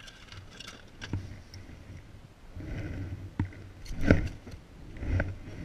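Handling noise of fishing gear in an inflatable raft: a few sharp knocks and clacks as a metal fish gripper and the catch are handled, the loudest about four seconds in, over a low steady wind rumble.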